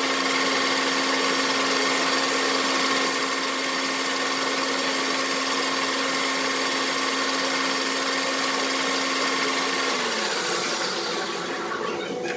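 Machine-tool motor running steadily with a constant hum, then switched off about ten seconds in, its pitch falling as it spins down.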